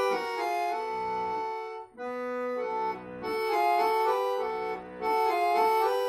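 Accordion playing a melody over held chords, with a gusli accompanying, in short phrases with a brief break about two seconds in.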